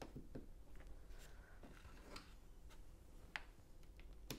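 Lego tiles being placed onto a plate: faint, scattered plastic clicks and taps, with a sharper click near the end.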